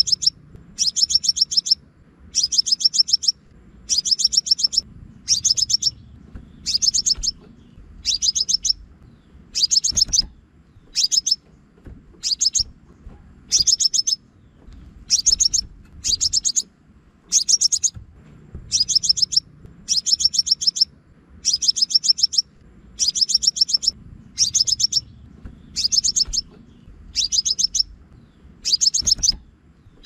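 Crimson sunbird call played as a trapping lure: short bursts of fast, high, sharp chipping notes, repeating about once a second.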